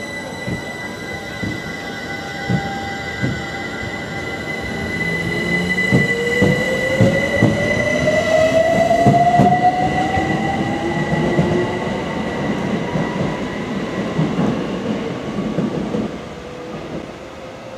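London Overground Class 378 electric train pulling out and gathering speed: the traction motors' whine rises steadily in pitch over a constant high tone, with the clack of wheels over rail joints. It gets quieter near the end.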